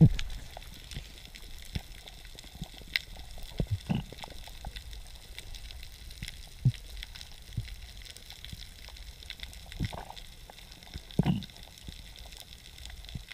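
Muffled underwater sound as picked up by a camera submerged on a reef: a steady low water rumble with scattered soft knocks and pops.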